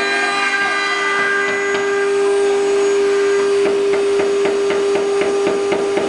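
Multi-spindle 4-axis CNC router running, its spindles giving a steady high whine over the noise of cutters carving rotating wood blanks. From about three and a half seconds in, a regular rapid tapping joins in, about four taps a second.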